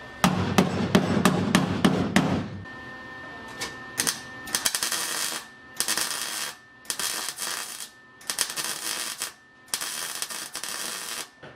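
Impact wrench run in short bursts on the bolts of an LS1 V8 being stripped down. It starts with a long rattling run of rapid hammering, then after a pause comes on again in about five bursts of roughly a second each.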